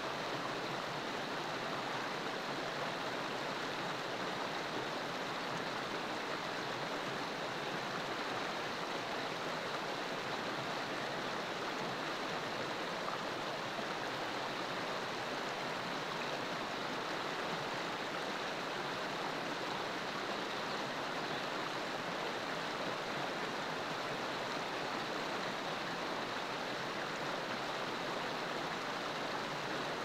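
Steady rushing of flowing water, even and unbroken.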